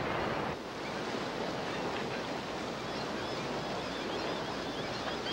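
Whitewater rapids rushing steadily, with faint high bird calls over the water from about three seconds in.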